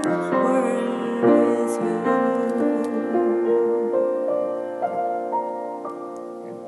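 Instrumental music: piano and soft keyboard chords with held notes, slowly fading.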